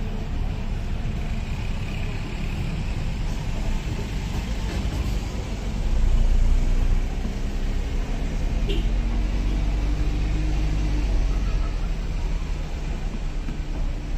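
Road traffic on a city street: a steady low rumble of passing engines that swells briefly about six seconds in.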